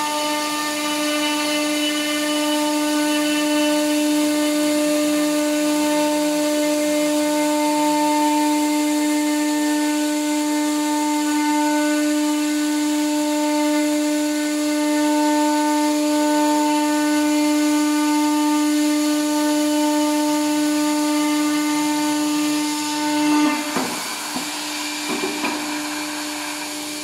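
CNC router spindle driving a long router bit through a thick solid wood board, a loud steady whine on one pitch with overtones, over a hiss of cutting. Near the end the cutting sound drops away with a few short knocks while the spindle's tone carries on fainter.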